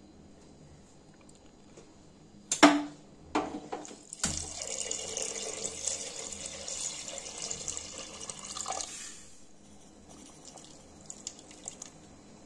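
Mutton stock (yakhni) poured in a steady stream into a pressure cooker of mutton masala, splashing for about five seconds before it stops. Just before the pour begins there are three sharp knocks, the first the loudest.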